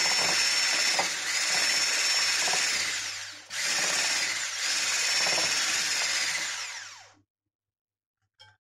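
Electric hand mixer running, its beaters whisking cooked pudding in a glass bowl. The motor drops out briefly about three and a half seconds in, then winds down and stops about seven seconds in, with a faint click near the end.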